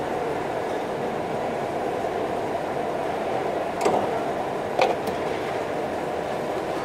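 Steady background noise of an industrial workshop, with two sharp knocks about a second apart near the middle.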